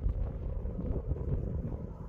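Wind buffeting the microphone in uneven gusts, a choppy low rumble, with a faint steady hum underneath.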